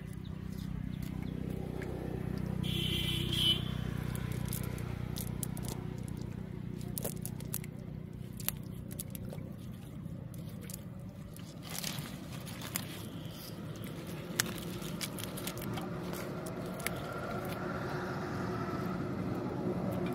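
An engine hums low and steady, louder in the first few seconds and again near the end. Over it come scattered small clicks and scrapes from a wet fishing net being picked through by hand.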